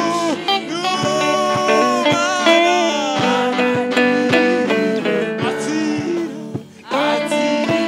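Background music: a gospel song carried by plucked guitar with singing voices, dropping out briefly near the end.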